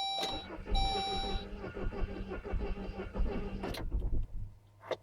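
Saab 9-3 engine cranking on its starter motor for about three seconds without catching, then the starter stops. A warning chime beeps twice near the start. It is a no-start that a freshly fitted direct ignition cassette has not cured, so the owner rules out the ignition.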